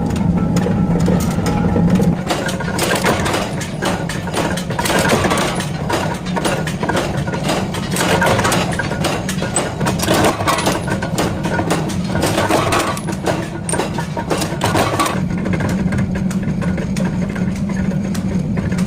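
Washer-forging machinery running with a steady hum, overlaid by rapid metallic clicking and clatter that grows dense from about two seconds in and eases off about fifteen seconds in.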